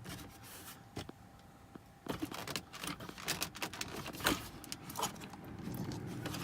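Plastic glove box and dash trim being handled and pulled at: irregular clicks, taps and rattles, sparse at first and busier after about two seconds, with the sharpest knock a little past the middle. The glove box is still held in and won't come out.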